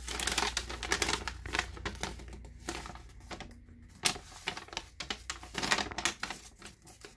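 A printed paper inventory sheet being unfolded and handled, rustling and crackling on and off, loudest in the first second and a half.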